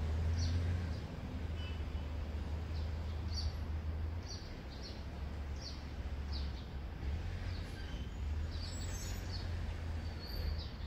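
Birds chirping in short, scattered calls over a steady low outdoor rumble.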